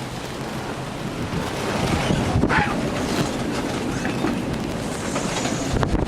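Gale-force wind of 40 to 50 knots and rushing sea around a sailing yacht, with steady clattering and knocking from the boat, and a brief falling squeak about two and a half seconds in.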